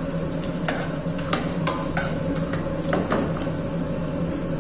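Long steel spoon stirring sliced raw papaya and sugar in a stainless steel saucepan, with several sharp clinks of metal on the pan's side, over a steady background hum.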